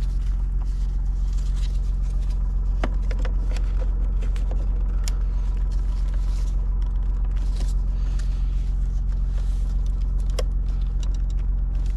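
Plastic trim clips on a BMW F20 centre console being worked loose with a pry tool and hands: scattered small clicks and scrapes over a steady low hum.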